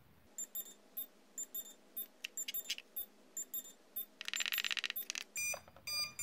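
Jumper T12 radio transmitter beeping at each button press as its frequency-tune value is stepped down: a string of short electronic beeps, with a fast run of beeps lasting about a second near the middle.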